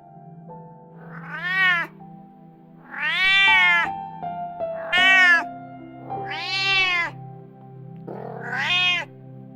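Domestic cat meowing five times, each meow rising and then falling in pitch, over background music.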